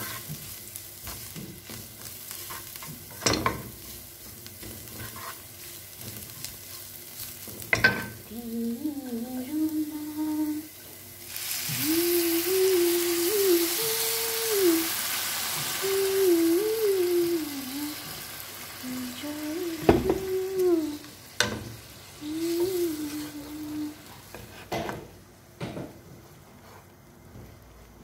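Wooden spatula stirring fried onions and spices in a hot nonstick pan, with a steady sizzle and a few sharp taps on the pan. About eleven seconds in, water poured into the pan sets off a loud hissing sizzle that dies down after a few seconds. A voice hums a tune through the middle part.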